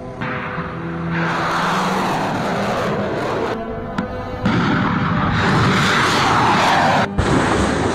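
Roar of missile launches from several spliced clips, cutting abruptly from one to the next a few times, over background music.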